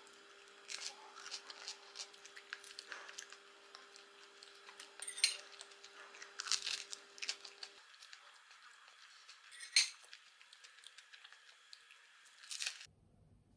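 Table knife clinking and scraping against a ceramic plate, among scattered small clicks and taps of handling at the table, with a few sharper clinks.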